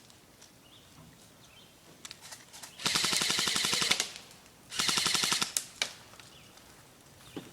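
Airsoft rifle firing two full-auto bursts: a rapid, even clatter of shots lasting about a second, then a shorter burst less than a second later.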